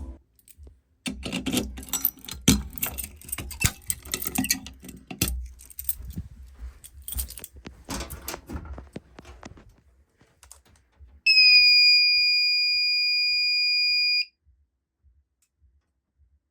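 Irregular rattling and clicking for about ten seconds. Then a fire alarm sounder gives one loud, steady high-pitched electronic tone lasting about three seconds, which dips slightly at the start and cuts off suddenly.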